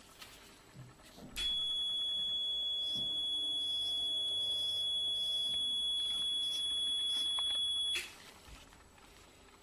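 Electrosurgical (electrocautery) unit's activation tone: one steady high-pitched beep held for about six and a half seconds, starting about a second and a half in and cutting off suddenly near the end. It sounds while the handpiece is energised to burn off a mole.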